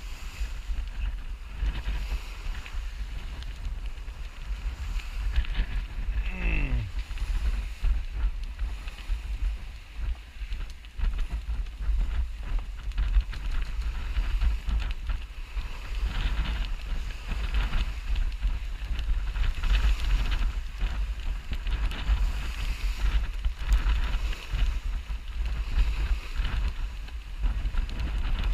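Wind buffeting the camera microphone over the rush of water along a sailboat's hull as it sails under way. A brief falling whistle sounds about six and a half seconds in.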